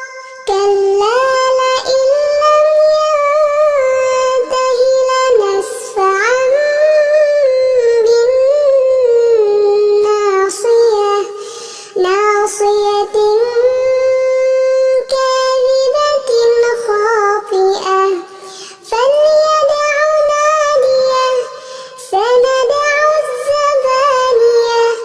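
Quran recitation: one voice chanting in melodic tajweed style, holding long drawn-out notes with ornamented pitch turns and pausing for breath a few times.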